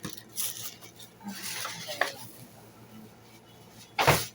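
Rustling and light clattering of unboxing packaging being handled, with a small click about two seconds in and a loud, sharp knock just after four seconds.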